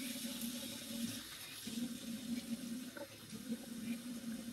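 Water from a bathroom tap running steadily into the basin while cupped hands splash it onto the face to rinse off face wash, with a few small splashes.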